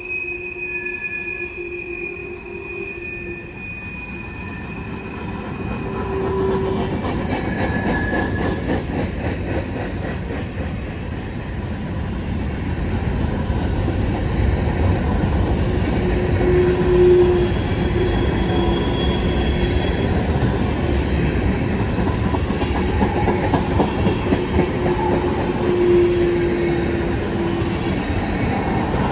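Freight cars of a long freight train rolling past: a steady rumble and rattle of steel wheels on rail that grows louder about six seconds in, with thin squealing tones from the wheels coming and going.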